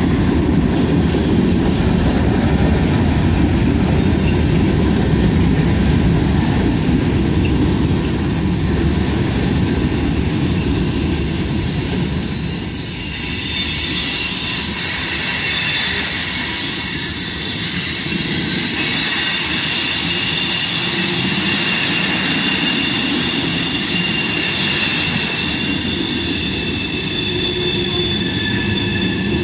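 Freight train of covered hopper cars rolling past close by, its wheels rumbling steadily on the rails. From about a quarter of the way in, a wheel squeals with several steady high-pitched tones that grow strongest through the middle and thin out near the end.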